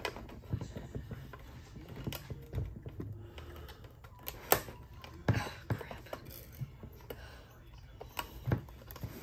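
Irregular sharp plastic clicks and taps as the cassette door of a Cricket talking doll is pressed and worked into its opening, its prongs catching against the housing; about ten clicks, the loudest about halfway through.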